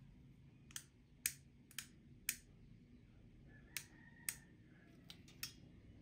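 Inline cord switch of a swing-arm desk lamp clicked on and off repeatedly: about eight sharp clicks, loosely in pairs.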